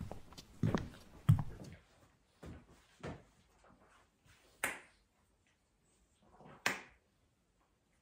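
Two low thumps, then two sharp clicks about two seconds apart.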